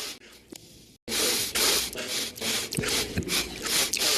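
A man sniffing hard and repeatedly through his nose: a string of sharp, airy sniffs. The sound cuts out briefly about a second in, and the sniffs come back louder after it.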